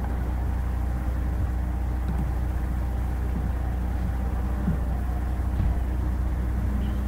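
A steady low hum with faint hiss above it, unchanging throughout and with no distinct events.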